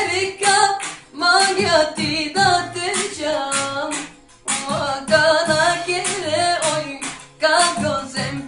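A song: a voice singing wavering, ornamented lines over instrumental backing with a beat, in phrases broken by brief pauses.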